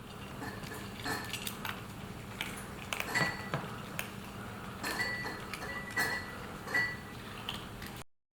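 Several light, sharp clinks, some leaving a brief ringing tone, over a low steady hum.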